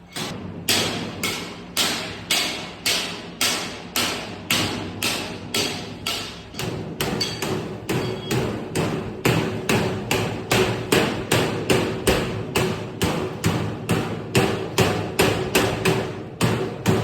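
Hammer blows on sheet-metal duct, struck in a steady rhythm of about two a second that quickens to about three a second partway through, with a faint ring under the later strikes.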